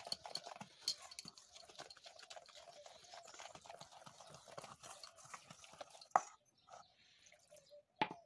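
Wire whisk clinking and scraping against a steel bowl as milk is beaten into flour for cake batter: a fast run of light ticks, a sharper knock about six seconds in, then quieter until another knock near the end.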